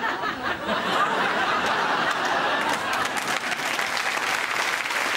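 Studio audience laughing and applauding at the end of a scene; the clapping builds and grows denser after about two seconds.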